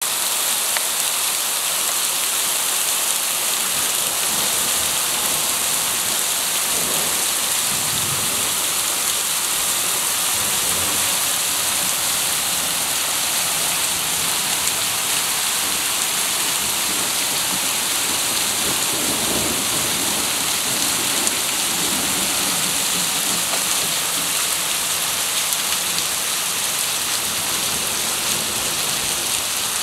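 Heavy summer storm rain pouring steadily onto a flooded paved square, with water splashing on the ground. Faint low rumbles of thunder come about seven seconds in and again around twenty seconds.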